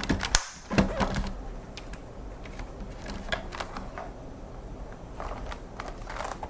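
Plastic clicks and knocks from a wireless ergonomic keyboard being handled and laid flat on its tilt feet, with a cluster of sharper knocks in the first second and light scattered clicks after.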